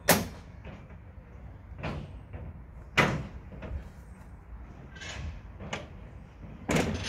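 Hinged top panels of an H.P. Jackson Waltzer fairground ride being pushed up into place by hand, clanking and banging. Sharp knocks come right at the start, about three seconds in and twice near the end, with lighter knocks between.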